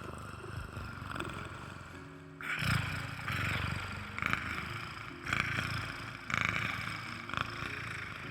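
A person imitating a cat's purr into the microphone: a throaty rumble that swells in pulses about once a second from about two seconds in.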